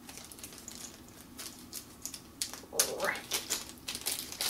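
Quick runs of small plastic clicks and taps as plastic doll eyes are handled and twisted, trying to pull them apart. A short rising squeak about three seconds in is the loudest sound.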